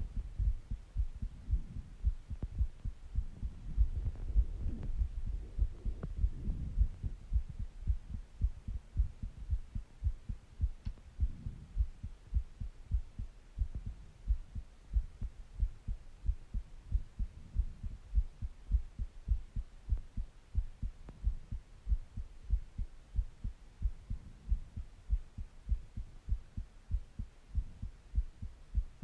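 A person's heartbeat heard close up: steady, evenly repeating low thumps, with a few soft breaths between them.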